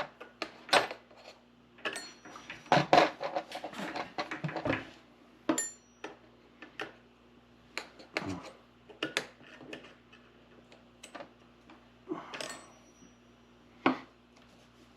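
Irregular metallic clinks, clicks and knocks of chainsaw parts and a hand tool being handled while the bar and chain are fitted and tensioned, with a faint steady hum underneath.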